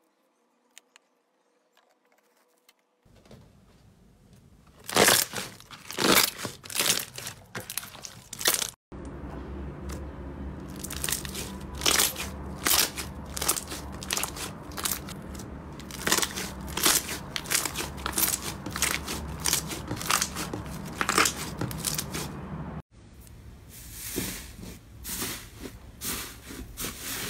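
Slime being squeezed, kneaded and pressed by hand: sticky crackling with sharp popping clicks, after about three seconds of near silence. In the middle section, glitter slime kneaded between the palms, a steady low hum runs under the crackles.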